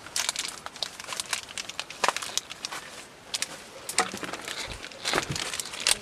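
Dry rustling and crackling with many irregular sharp clicks.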